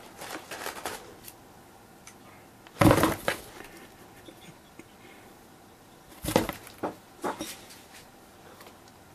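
Cardboard box knocking and scraping as a cat moves and paws inside it: a loud scraping knock about three seconds in, then a few shorter knocks and scrapes about six to seven seconds in.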